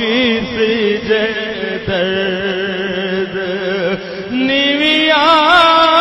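Music with a single voice singing long, wavering, ornamented lines over a steady held low tone; a new, higher phrase begins about four and a half seconds in.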